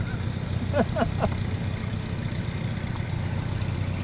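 Continental O-200 flat-four aero engine of a Pietenpol Air Camper droning steadily in flight overhead. A few short chirping sweeps come about a second in.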